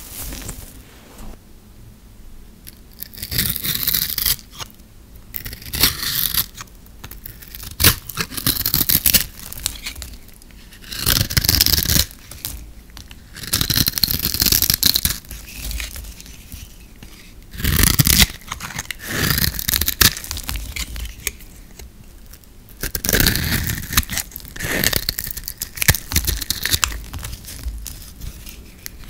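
Knife blade carving into dry, crumbly bars of old soap, scraping and splitting off brittle shavings in repeated strokes. Each stroke is a second or two of crisp scratching and tearing, with quieter gaps between.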